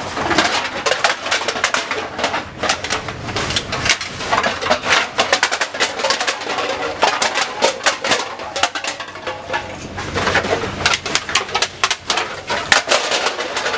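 Empty aluminium drink cans clattering and clinking against one another in a rapid, irregular jumble as they are handled and bagged.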